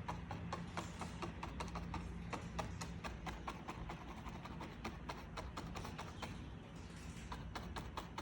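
Old worn paintbrush dabbing and patting paint onto a small canvas: quick, irregular soft taps, several a second, stippling texture for grass.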